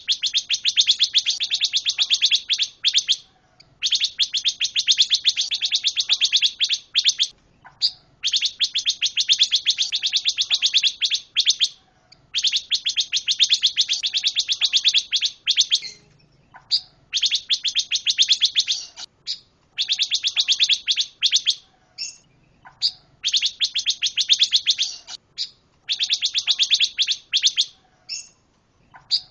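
A pancawarna songbird singing: long bursts of very rapid, high chattering trills, each lasting two to three seconds, repeated about eight times with brief pauses and a few single chips between them.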